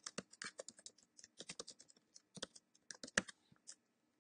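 Typing on a computer keyboard: a quick, uneven run of light key clicks that stops about three and a half seconds in.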